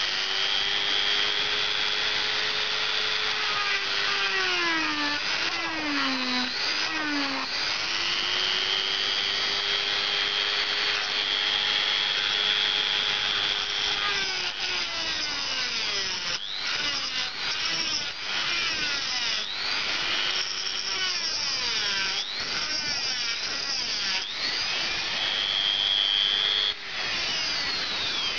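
Handheld electric rotary tool (mini drill) running with a steady high whine, fitted with a homemade cutter made from a lighter's flint wheel. Its pitch sags several times as the cutter bites into a brass part, a few dips about five seconds in and then repeatedly through the second half, with a scraping cutting noise.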